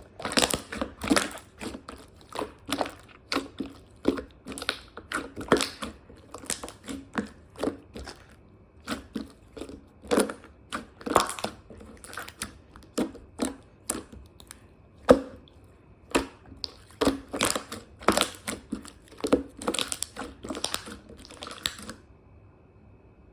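A rapid, irregular series of short squishy, crackling clicks, a few a second, stopping near the end.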